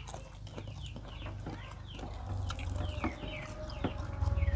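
Chickens clucking: a run of short, high, falling calls repeating every few tenths of a second, with small clicks and taps from people eating by hand off plates. A low hum grows louder near the end.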